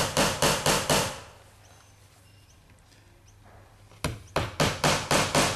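Hammer tapping nails into a timber panel on a workbench, about four quick blows a second. The blows stop for about three seconds and then start again on another nail. The nails are being driven only partway in to get them started.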